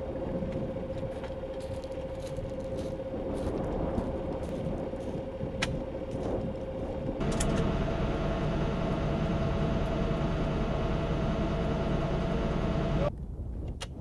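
Military vehicle's engine running steadily, with a few light metallic clicks. About seven seconds in it changes to a louder, steadier hum heard inside the vehicle's crew compartment, which cuts off abruptly about a second before the end.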